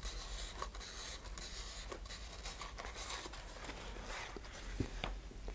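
Paper towel rubbing around a clear tube, wiping off excess thin super glue: faint rustling and scuffing, with a couple of light taps near the end.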